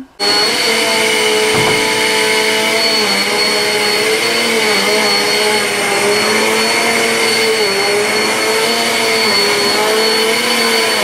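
Upright vacuum cleaner running steadily on carpet, a loud motor whine that wavers slightly in pitch as it is pushed.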